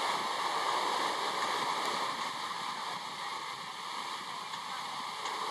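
Steady rushing noise of an Alco diesel locomotive approaching at speed from a distance, with no clear engine beat; it eases off slightly partway through.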